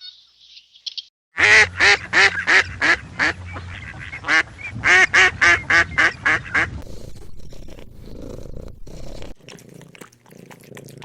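Duck quacking: a rapid series of loud quacks, about three a second, that stops about two-thirds of the way through and leaves only faint background noise.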